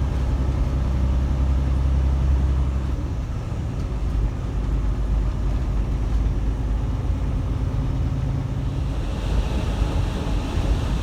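Loaded semi truck's diesel engine and road noise heard inside the cab while driving: a steady low engine hum that changes about three seconds in, under a continuous rumble. A hiss, like a cab fan, joins near the end.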